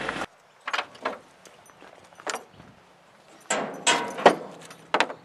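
A handful of short metallic clinks and knocks, scattered and irregular, the loudest a quick cluster about four seconds in: collar buckles and hardware being handled as hunting collars are fitted onto a hound standing on a truck tailgate.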